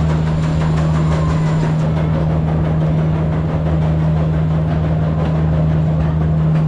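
Train engine running steadily with a low, even hum over a rumble, heard riding aboard the train.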